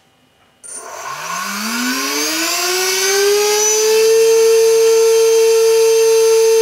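DYS 1806 2300 kV brushless motor spinning a Gemfan 6x4.5 propeller, run up to full throttle: a whine that starts suddenly under a second in, rises in pitch for about three seconds, then holds steady at maximum.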